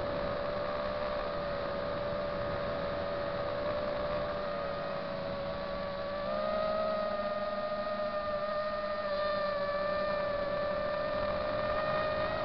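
FPV drone's electric motors and propellers whining steadily, as heard by its onboard camera in flight. The pitch drifts a little with throttle, and the whine gets slightly louder and higher about six seconds in.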